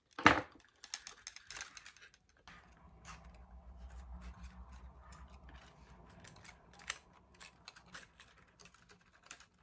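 Small clicks, taps and rustles of wired sugar flowers and leaves being handled and set into an arrangement, with one sharp click just after the start. A faint low hum runs through the middle.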